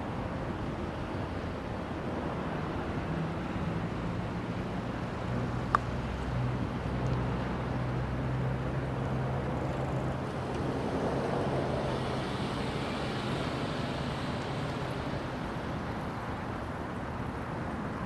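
Distant road traffic as a steady background rumble, with a vehicle engine's low hum coming up in the middle and fading again. A single sharp click sounds about six seconds in.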